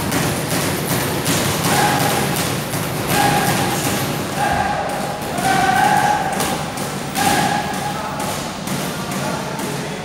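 Gloved punches from a sparring bout landing in a quick, irregular run of thumps. Short same-pitched tones recur over them about once a second.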